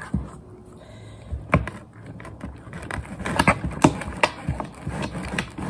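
Scattered light clicks and knocks of cooking utensils and seasoning containers being handled at the stove, coming more often in the second half.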